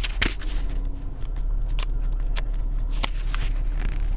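Pages of a book being turned and flipped, with scattered paper rustles and sharp snaps over a steady low hum.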